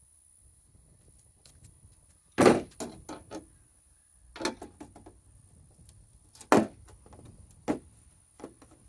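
Knocks and clanks of tools and metal parts being handled while a car's body panels are unbolted: a loud clatter about two and a half seconds in, then scattered single knocks.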